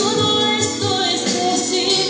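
A woman singing a worship song into a handheld microphone, holding long notes over an instrumental accompaniment with a steady low beat.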